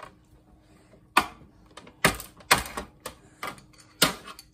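Sharp clicks and clacks of tools and metal and plastic parts being handled while an old computer monitor is taken apart. There are about half a dozen separate knocks, starting about a second in, over a faint steady hum.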